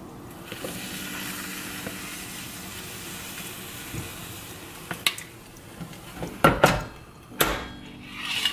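Waffle batter sizzling as it is poured onto the hot plates of a flip-style waffle iron, then several sharp knocks and clanks as the iron's lid is shut and its handle gripped, the loudest about six and a half seconds in.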